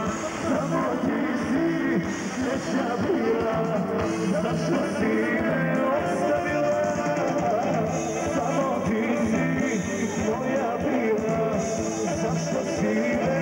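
Live amplified Balkan folk music from a band with accordion and guitar, with a man singing over it.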